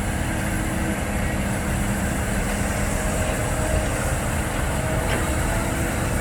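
Heavy diesel machinery running steadily: a Cat excavator's engine and hydraulics working while a dump truck is loaded with soil.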